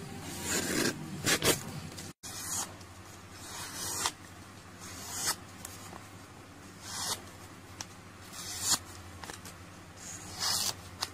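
A paper sheet rubbed and pulled against a steel knife blade by hand: seven or eight rustling, scraping strokes, each swelling and then stopping, one every second or two.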